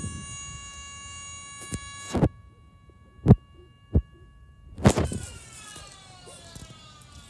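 Federal Signal Model 2 electromechanical siren sounding a steady wail at full pitch, which cuts off abruptly about two seconds in. A few loud knocks follow, then the siren winds down, its pitch falling slowly.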